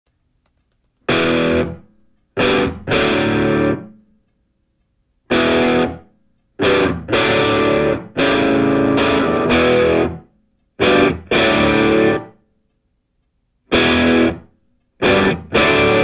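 Music: distorted electric guitar chords in short bursts, each cut off into dead silence before the next, about a dozen in all.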